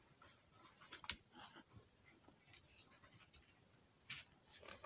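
Near silence with a few faint taps and scratchy rustles of thick cardboard board-book pages being handled and turned, the clearest about a second in and again near the end.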